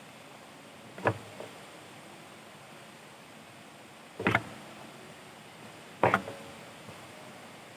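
Three brief knocks or clacks, about a second, four seconds and six seconds in, over a low steady background.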